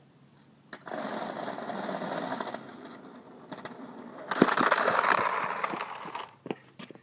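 Waveboard's caster wheels rolling with a fast rattle on a concrete driveway, starting about a second in, easing off, then louder as the board passes close by from about four seconds in, and stopping near the end.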